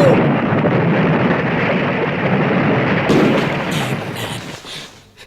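A long, loud rumbling noise, like an explosion or thunder effect, that holds strong for about three seconds and then dies away.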